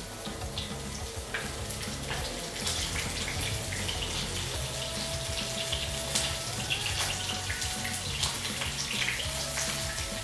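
Breaded chicken pieces sizzling and crackling in hot oil in a frying pan, getting louder about two and a half seconds in.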